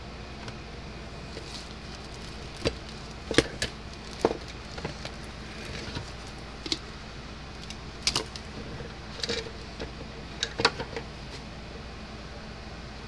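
Scattered light clicks and taps of a circuit board, wire and soldering iron being handled on a workbench, starting a couple of seconds in and dying away near the end, over a steady background hum.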